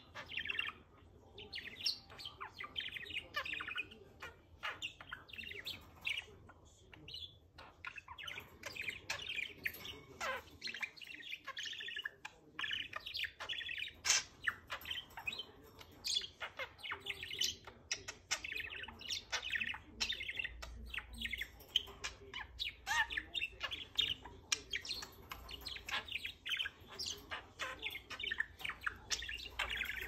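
Budgerigar chattering: a near-continuous stream of quick chirps, clicks and warbles, with a few short pauses.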